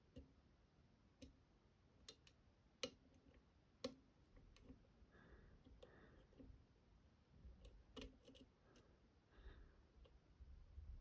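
Faint, scattered small clicks of a lock pick and tension wrench working the pins of a 13-pin lock being picked.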